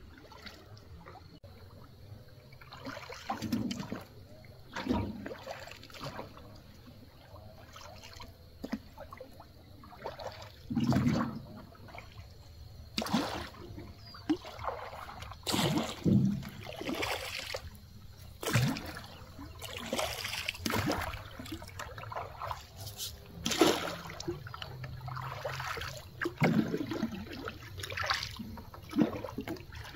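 Water sloshing and splashing in irregular bursts, every second or two, with trickling between them.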